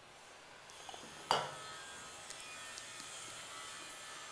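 A metal spoon clinks once against a stainless steel mixing bowl about a second in, with a few faint light taps around it, over quiet room tone.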